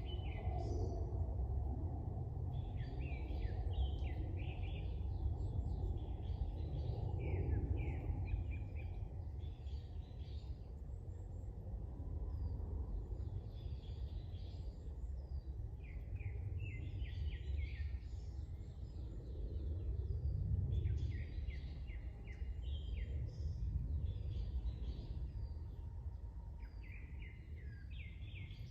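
Small birds chirping in repeated short bursts of quick notes, over a steady low outdoor rumble that swells twice.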